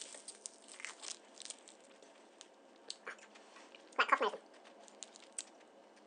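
Mouth sounds from sucking and biting on an ice pole: scattered wet clicks and small crunches of ice, with a brief louder falling voiced sound from the mouth about four seconds in.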